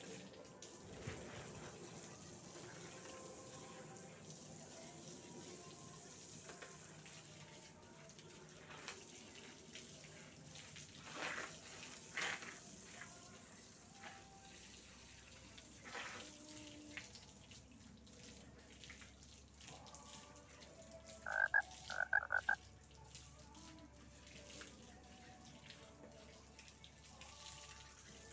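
Water from a garden hose spraying faintly over a dog being bathed. About two-thirds of the way through come three short pitched calls, the loudest sounds.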